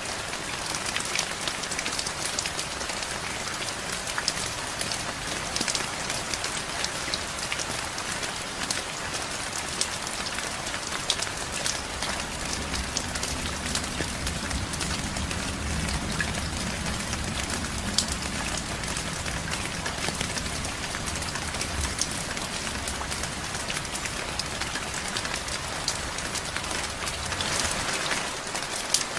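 Steady rain falling on a surface, a dense patter of drops with frequent close, sharp drips. A low rumble swells under the rain through the middle and fades again.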